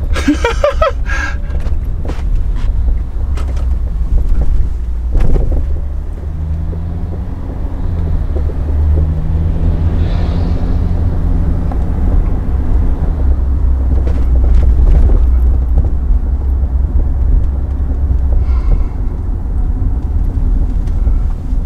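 Hyundai Veracruz driving, heard from inside the cabin: a steady low road and drivetrain rumble, with a hum that holds for several seconds in the middle and a few short knocks. The car is being road-tested for an underbody knocking noise that has not been traced.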